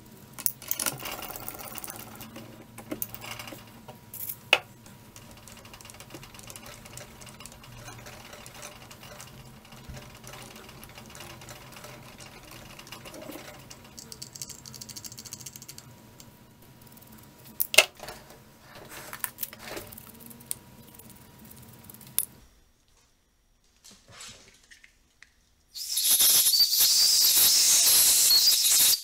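Light metallic clicks and rattles from an aluminium part and its fittings being handled in a mill vise, over a steady low hum. About 26 seconds in, an aerosol can sprays through its straw with a loud, even hiss lasting about three seconds.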